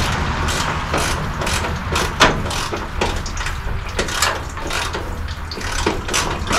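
Hand tools clicking and clinking on metal while the radiator fan shroud is unbolted from the truck, with one sharp clink about two seconds in, over a steady low hum.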